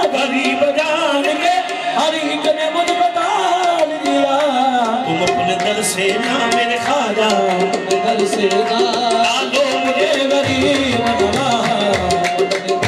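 Live qawwali music: tabla drumming under harmonium with held notes, and a voice singing.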